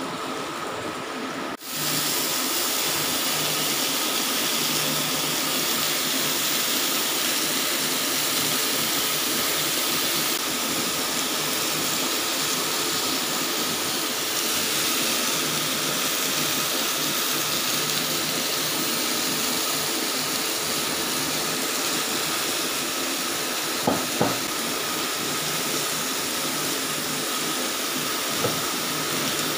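Chicken and sliced zucchini sizzling on a hot grill plate over a portable gas stove, a steady hiss that starts suddenly about two seconds in as the food goes onto the plate. Two short sharp clicks come late on.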